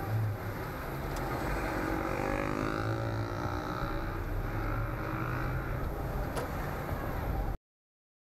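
Traffic and engine noise heard from inside a car: a steady low engine hum and road noise, with an engine rising in pitch as it accelerates between about two and five seconds in. The sound cuts off suddenly near the end.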